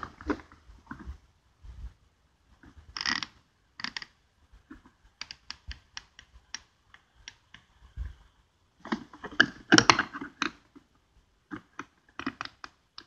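Scattered clicks and clacks of a socket set being handled, hard tool pieces knocking against each other and the case. There is a quick run of light ticks about five seconds in, and a louder cluster of clacks near the end.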